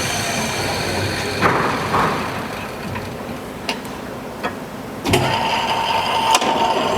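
Hardinge HLVEM precision lathe running under power as it is set up for thread cutting, with a few sharp clicks of its controls. About five seconds in there is a clunk, and after it the machine runs louder with a steady whine.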